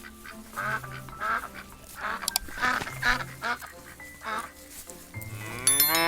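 Ducks quacking in a run of short calls over light background music, then a cow's long, loud moo rising and falling near the end.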